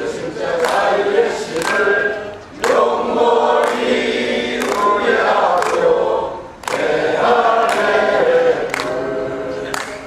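A large group of adults singing their old elementary school's song together.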